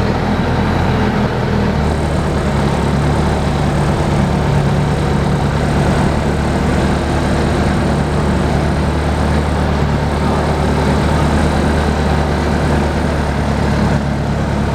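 Bobcat skid-steer loader engine running steadily with a deep, even drone.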